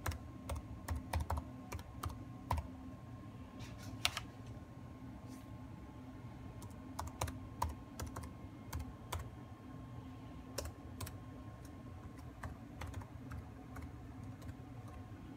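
Typing on an HP laptop keyboard: irregular runs of key clicks, with one louder keystroke about four seconds in.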